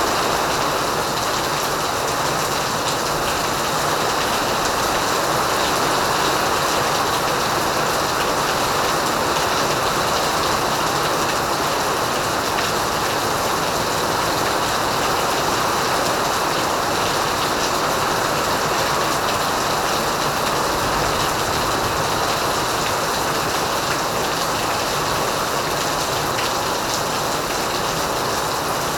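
Heavy rain pouring down in a steady, dense hiss with no let-up.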